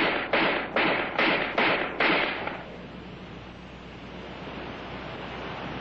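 ArmaLite AR-10 rifle firing six shots in quick succession, about two and a half a second, each cut short. The shots stop about two and a half seconds in, leaving a steady hiss.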